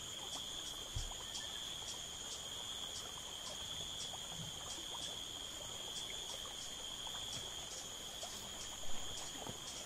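Insects trilling steadily, a continuous high buzz with a faint regular pulse of about three a second, over low rustling noise. A soft thump comes about a second in.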